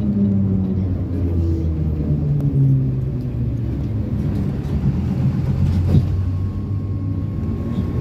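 ZiU-682 trolleybus traction motor whining down in pitch as the trolleybus slows, over a steady low rumble of the running vehicle. A single knock sounds about six seconds in.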